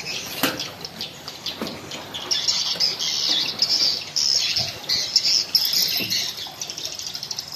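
Small birds chirping busily in irregular high bursts, thickest in the middle, with a sharp knock about half a second in.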